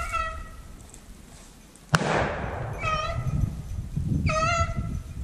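A single shotgun shot about two seconds in, the loudest sound, with a fading echo after it. Beagles bay on a rabbit chase: one bay at the very start and two more after the shot.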